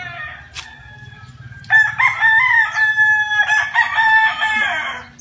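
Rooster crowing: one long crow that starts about a second and a half in and runs for about three seconds.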